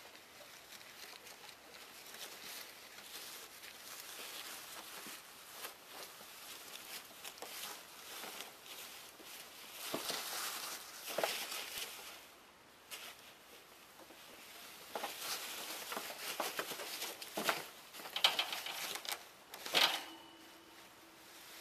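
Ferrets scrabbling and burrowing through shredded paper bedding in a wire cage: rustling and crinkling paper with small scratchy clicks, in louder bursts about halfway through and again near the end.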